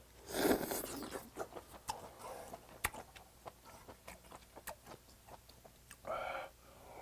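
A person eating close to the microphone: a loud slurp of a hot mouthful of beef tripe hot pot, then wet chewing with many small smacking clicks. About six seconds in there is a short puff of breath blown to cool the next hot bite.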